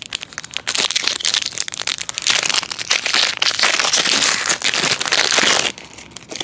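A trading-card pack's plastic-foil wrapper crinkling and crackling loudly as it is torn open and worked apart by hand close to the microphone. The crinkling starts about half a second in and stops abruptly near the end.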